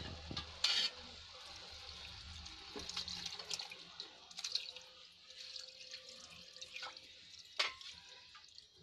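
Milk being poured from a vessel into a hot kadhai of grated carrots: a steady splashing pour, with a couple of sharp clicks.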